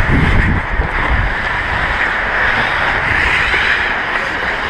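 Hockey skate blades scraping and cutting the ice during fast skating, with wind rushing over a body-worn action camera's microphone. Low knocks in the first second or so.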